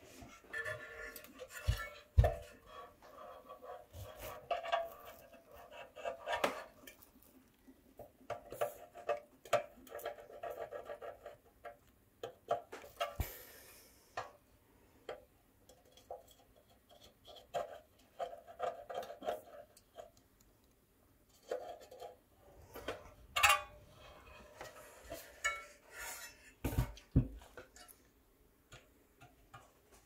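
Irregular light metal clicks, taps and scrapes as a screwdriver and soldering iron work a small hinge against a sheet-metal body panel, with a few sharper knocks.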